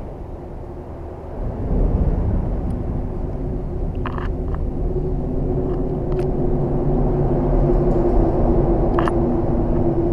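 Electric trolling motor running with a steady low hum, switching on about a second and a half in as the boat is turned. A couple of short clicks are heard over it.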